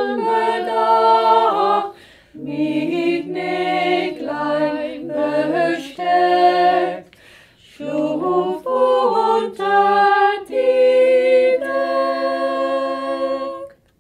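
Several voices singing a song unaccompanied, in harmony, in phrases with two short breaks; the singing stops abruptly near the end.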